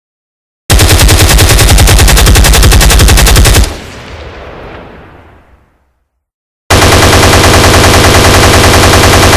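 Machine-gun sound effect: a burst of rapid automatic fire lasting about three seconds, which stops and rings away. After a pause a second long burst starts near the end.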